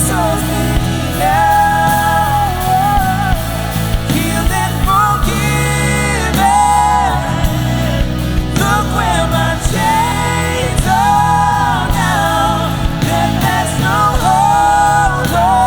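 Worship band playing a Christian song with singing over steady drums and instruments.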